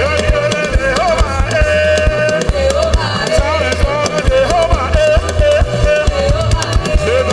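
Live gospel praise band music: a steady drum beat and bass line under a sliding lead melody.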